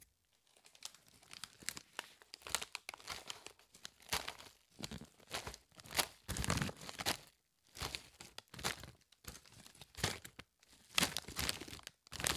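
Cardboard snack case being opened and a hand rummaging through the plastic rice-cracker snack bags inside, giving irregular bursts of tearing, rustling and crinkling.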